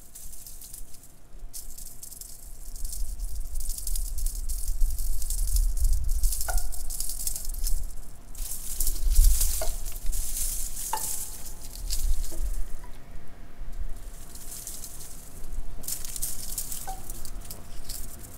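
Heavy rain hissing steadily on a road, swelling and easing in waves over a low rumble. A handful of short, ringing pings that drop in pitch sound through it.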